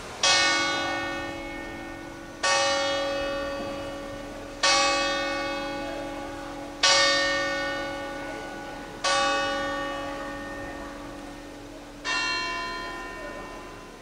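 Church bell struck by hammer while hanging still: six strokes about two seconds apart, each ringing on and fading away. The last stroke comes after a slightly longer pause.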